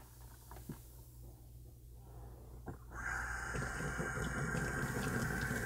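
Faint taps and rustles of potting soil being knocked off a fern's roots into a plastic bucket. About three seconds in, a sink faucet starts running, a steady hiss of water into the sink that goes on.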